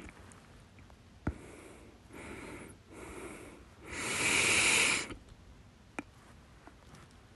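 Hiccups: a sharp, sudden catch in the throat about a second in, then three breathy breaths, the last a long, loud one of about a second, and another short catch near six seconds.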